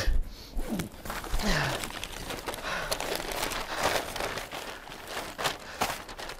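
A folded paper map crinkling and rustling as it is pulled out and opened up, in a run of irregular crackles. A loud sharp knock comes right at the start.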